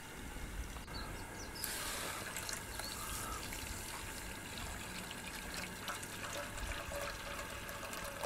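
Water pouring in a steady stream from a plastic jug into a metal frying pan of sugar, the first step of making sugar syrup. The pour starts about a second and a half in.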